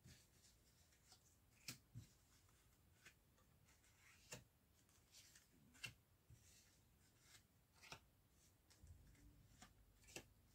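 Faint soft taps and swishes of oracle cards being picked from a spread deck and laid face down on a fabric table mat, about one a second.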